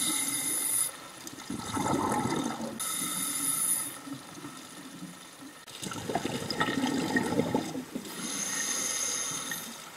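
Scuba diver breathing through a regulator underwater. Hissing inhalations alternate with bubbling exhalations, about three intakes and two exhales.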